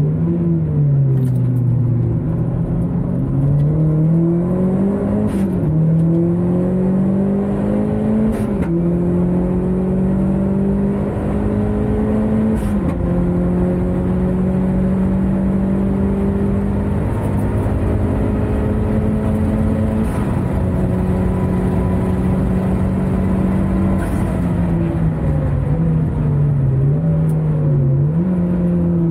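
Track car's engine heard from inside the cabin under hard acceleration: the pitch climbs and drops sharply at upshifts about five, eight and a half, and thirteen seconds in, then holds steady at speed. Near the end it steps down again through downshifts, with short rises and falls.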